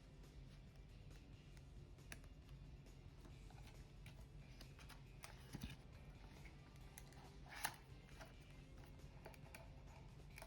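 Faint scattered clicks and light taps of small objects being handled, with a sharper click about seven and a half seconds in, over a low steady hum.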